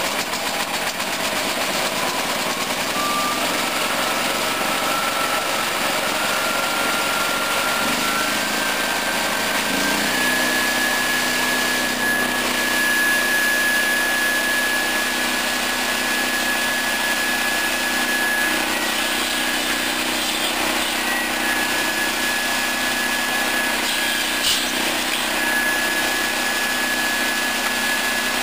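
A swing saw with a 700 mm circular blade, driven by a 13 hp petrol engine, running without cutting. A high whine climbs in steps over the first ten seconds, then holds steady, with a lower hum coming in about ten seconds in.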